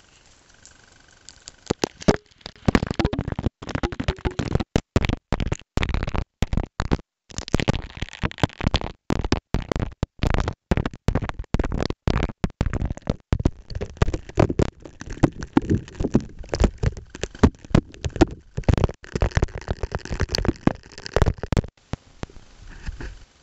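Water streaming onto a Kodak ZM2 MiniHD camera during a water test, picked up by the camera's own microphone as loud crackling and spattering that starts about two seconds in. The sound cuts out completely for split seconds again and again.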